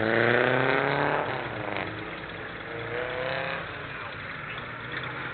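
A car engine accelerating past, its pitch climbing for about a second, then falling away; a second, shorter rise in engine pitch comes about three seconds in.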